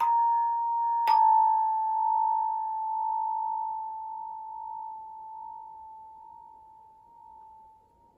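A high, bell-like note struck twice, about a second apart, then left ringing and slowly dying away.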